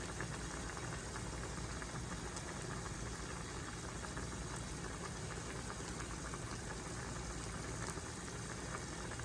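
Pork adobo simmering in a pan, the soy-based sauce bubbling steadily with fine crackles.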